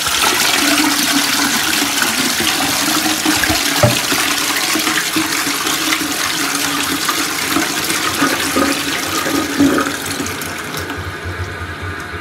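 Armitage Shanks Kensington toilet flushing: water rushing and swirling round the pan, with a steady hum under it. The rush eases off near the end as the flush runs down.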